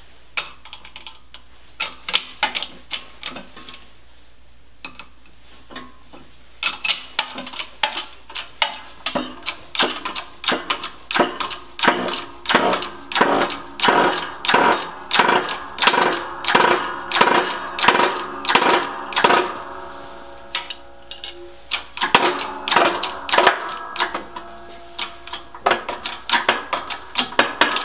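Hydraulic bottle-jack shop press being pumped by its long steel handle: sharp, ringing metallic clanks about twice a second, with a short pause about two-thirds of the way through, as the press forces a bearing onto a rear axle shaft.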